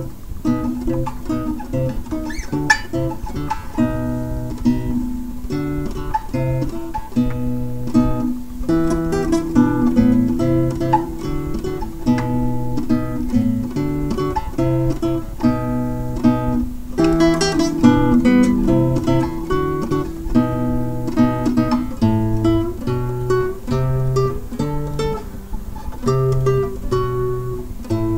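Background music: an acoustic guitar playing a plucked, strummed melody.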